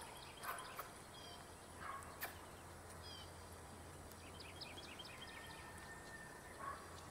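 Faint outdoor ambience with birds chirping on and off, including a quick run of chirps about two thirds of the way through, over a low steady hum.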